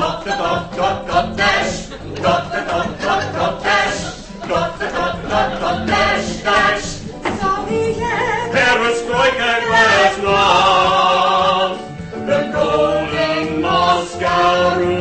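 A man and two women singing a show tune together over musical accompaniment, moving into long held notes in the second half.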